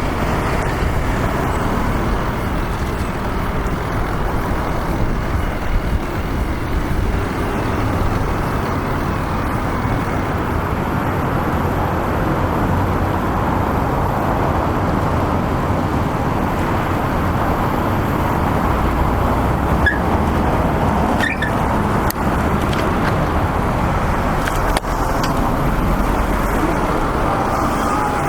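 Steady city road traffic noise, with a low wind rumble on the microphone.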